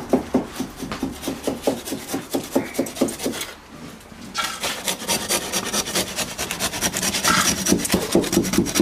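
Irwin handsaw cutting back and forth down the gap of an oak frame joint, easing the joint so the gap is even and it can be tapped tight. Quick strokes, about three or four a second, break off briefly a little after three seconds in and then start again.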